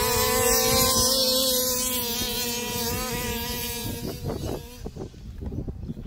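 Two large-scale RC cars' small two-stroke petrol engines, a Zenoah 25.4cc and a 34cc racing engine, at full throttle in a drag-race launch, holding a steady high pitch, then fading away about four seconds in as the cars pull off.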